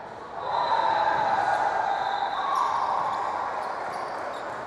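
Echoing gymnasium noise during a basketball game. It swells about half a second in and eases off over the next few seconds.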